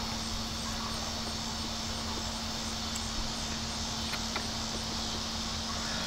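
Outdoor background of crickets chirping steadily over a low constant hum, with a few faint clicks as the strap and its hardware are handled.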